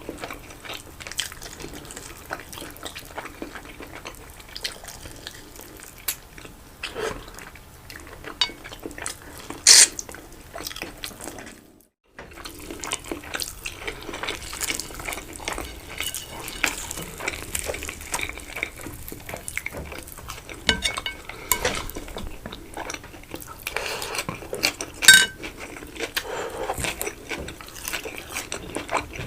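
Close-miked eating of rice-stuffed chicken and salad: cutlery clinking and scraping on a plate between mouthfuls, with scattered small clicks and two louder clinks about ten and twenty-five seconds in.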